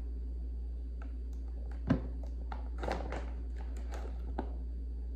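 Rustling of a plastic whey protein bag and small clicks of a scoop as powder is scooped out for a blender, with one sharp knock about two seconds in. A steady low hum runs underneath.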